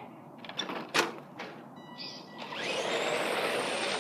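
A few clicks and one sharp knock about a second in, as the RC car is handled. Then, from about two and a half seconds in, the RC car's motor and drivetrain start whirring, rising in pitch and then running steadily.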